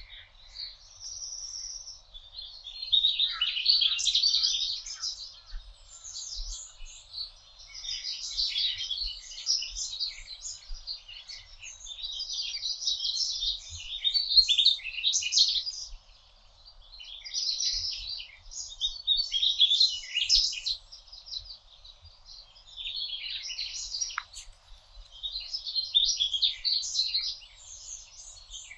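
Songbirds singing in woodland: phrases of about two seconds, each a rapid run of high notes, repeating every three seconds or so.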